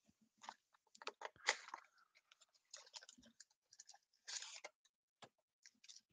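Trading card box and foil pack being handled: faint clicks and crinkling rustles of cardboard and foil wrapper, strongest about a second and a half in and again just after four seconds.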